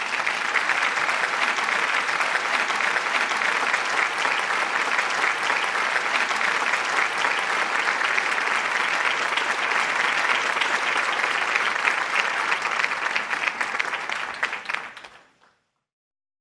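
Applause: steady, dense clapping that fades out near the end.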